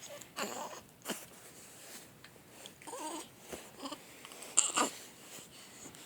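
Two-week-old newborn hiccuping: a few short, sudden hiccups spaced a second or more apart, the loudest about three-quarters of the way in, with a brief small whimper near the middle.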